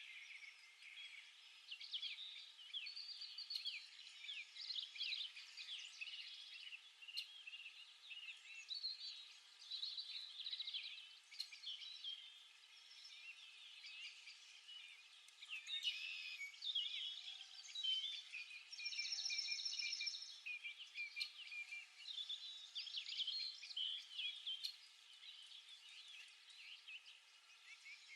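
Small birds chirping and twittering with many quick overlapping calls, fairly faint, with a rapid trill about two-thirds of the way through.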